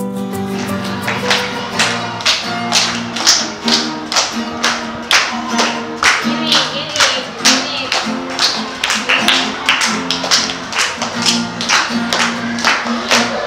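Acoustic guitar strummed in a quick, steady rhythm, each strum landing as a sharp percussive tap over ringing chords.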